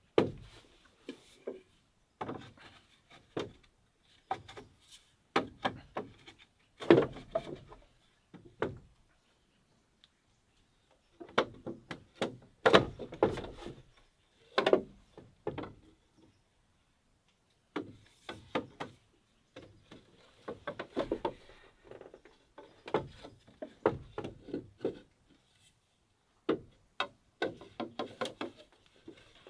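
Green bamboo poles knocking and rubbing as crosspieces are worked into the holes of a bamboo chair frame's uprights: irregular wooden knocks and thunks in clusters, with two short pauses.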